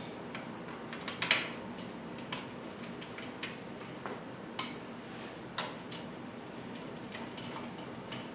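Scattered light clicks and knocks of small parts and a tool being handled while the black top cover is fitted onto an aluminium-profile frame, with one sharper knock about a second in.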